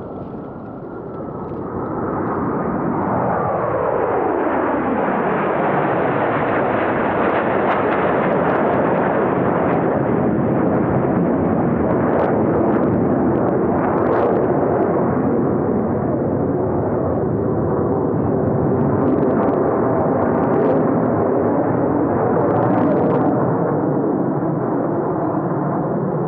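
A formation of F/A-18 Super Hornet jets passing, with a turbine whine that falls steeply in pitch over the first few seconds as they go by. After that, loud, steady jet engine noise.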